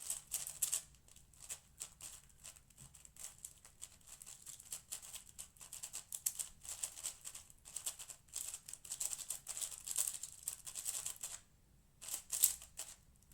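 Rapid clicking and clacking of a Cosmic Shadow M 6x6 speedcube's layers being turned fast during a speedsolve, with a brief pause near the end.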